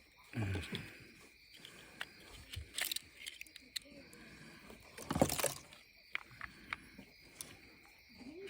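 Scattered clicks and knocks of parts and tools being handled during work on a Stihl FS91R string trimmer, with a louder short clatter about five seconds in, over a steady faint high-pitched hum.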